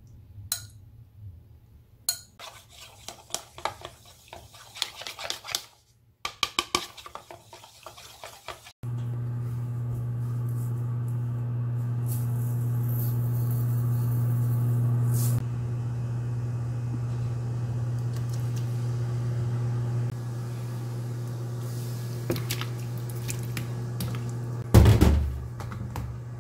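A metal spoon stirring powder and water in a plastic bowl, with many short clinks and scrapes. About nine seconds in, an induction cooktop heating a pan of water starts a steady low electrical hum that runs on. Near the end comes one loud knock or splash, the loudest sound.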